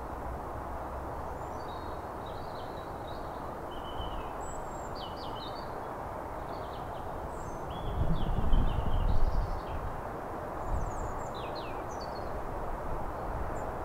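Steady, even rumble of a Boeing 777's jet engines on final approach to land. Small birds chirp over it throughout, and a louder low rumble swells briefly about eight seconds in.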